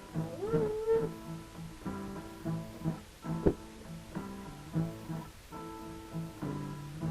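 Guitar playing a steady, even pattern of plucked low notes and chords, with a short higher gliding note about half a second in and a sharp click a little past the middle.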